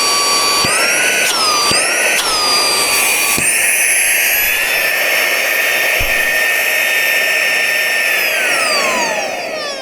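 Small handheld car vacuum cleaner's motor whining at speed. Its pitch bends up and down twice, then it clicks up to a higher speed about three and a half seconds in. Near the end it is switched off and winds down with a falling whine.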